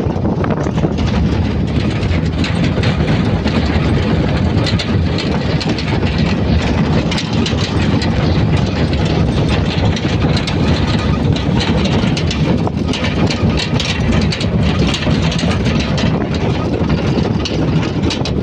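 Steady rumble of a moving car's engine and road noise, with wind rushing over the microphone, heard while riding along in it.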